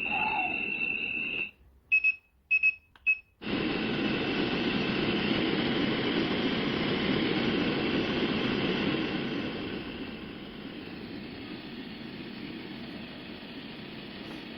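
A BatdTech wake-up light alarm clock sounding electronic beeps: a held high tone, then several short, evenly pitched beeps. About three and a half seconds in, its steady white-noise sound starts, and it gets quieter about ten seconds in.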